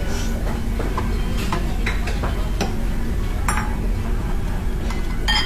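Tableware tapping and clinking while eating: irregular light clicks of utensils against bowls and dishes, the loudest near the end, over a steady low background hum.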